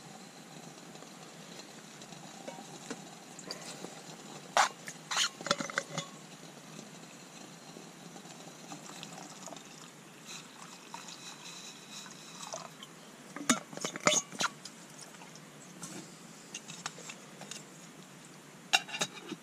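A metal cooking pot clinks against a small camp stove and windscreen in several sharp groups, around 5 seconds in, around 14 seconds in and just before the end, while water is poured into the pot from a steel bottle.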